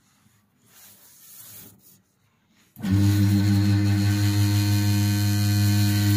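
Small bench drill press with a glass-cutting disc switched on about three seconds in, its motor then running steadily with a deep hum; before that, only faint handling noise.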